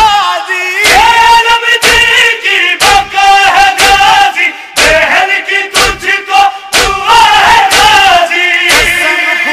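A nauha, a Shia lament in Urdu, chanted by a male reciter with a group of voices joining in. Sharp slaps come about once a second in time with the chant: the chest-beating (matam) that keeps its rhythm.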